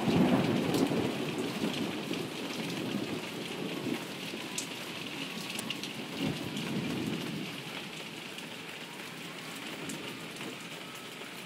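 Heavy rain pouring down steadily, with a low rumble swelling near the start and again about six seconds in.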